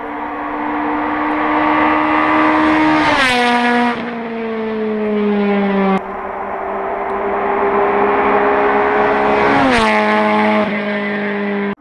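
Rally cars at full throttle passing close by, twice: the engine note holds high and climbs as each car approaches, then drops sharply in pitch as it goes past, about three seconds in and again near ten seconds. The sound cuts off abruptly a few times.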